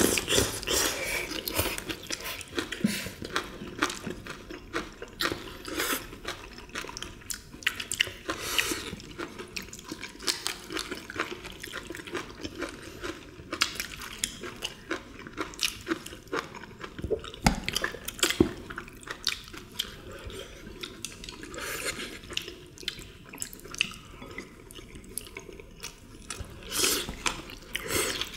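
Several people eating close to the microphones: wet chewing, smacking and slurping, with irregular sharp clicks of chopsticks against dishes.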